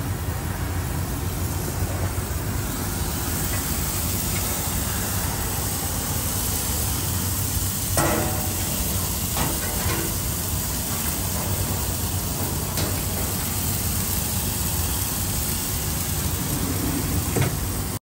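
Steaks sizzling on a gas grill: a steady hiss with a few faint pops scattered through.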